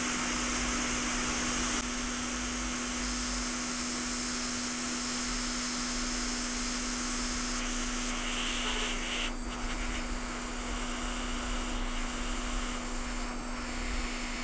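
Hot air rework station blowing steadily, a constant airy hiss with a low fan hum underneath, as it heats the board around the iPhone 6s NAND memory chip.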